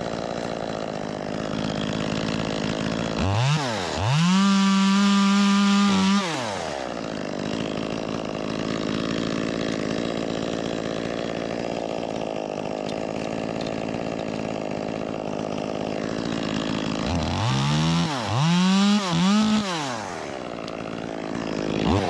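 Ported Echo 2511T top-handle two-stroke chainsaw idling. About three seconds in it is blipped, then held at full throttle for about two seconds before dropping back to idle. Near the end there are three quick throttle blips, and one more short one right at the close.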